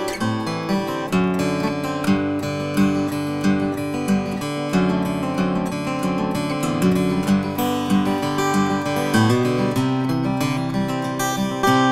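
Bourgeois OM Large Sound Hole acoustic guitar, with an Adirondack spruce top over Brazilian rosewood back and sides, played solo. It carries a steady run of ringing notes over repeated bass notes.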